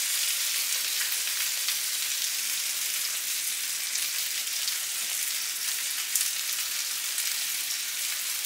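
Frikadellen sizzling in fat in a frying pan: a steady frying hiss with small crackles, the patties browned on both sides and nearly done.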